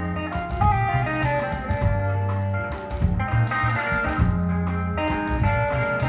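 Live band playing: electric guitar lines over bass guitar and drums.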